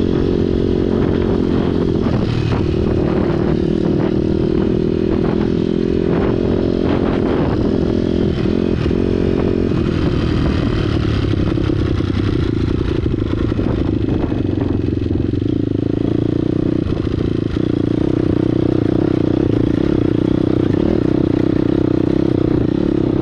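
2009 Honda CRF250R's single-cylinder four-stroke engine running under load as the dirt bike rides singletrack, its revs rising and falling with the throttle. Short clatters and scrapes come through over the first several seconds.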